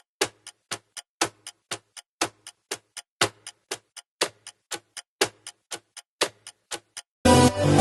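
Clock ticking sound effect used as a quiz countdown: a steady tick-tock of about four ticks a second, every other tick louder. Near the end it gives way to loud electronic dance music.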